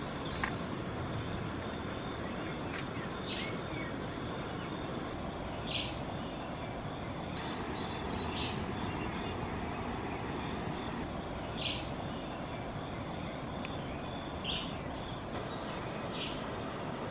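Forest ambience: a steady high-pitched insect drone, with short high chirps every two to three seconds over an even background hiss.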